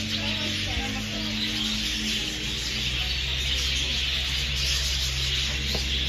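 A large flock of budgerigars chattering all at once: a dense, continuous high twittering with no pauses.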